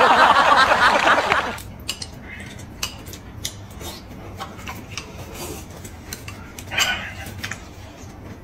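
Close-up eating sounds: a loud, noisy slurp or mouthful for the first second and a half, then a metal spoon clicking against a glass bowl and small chewing noises, with another short slurp near the end.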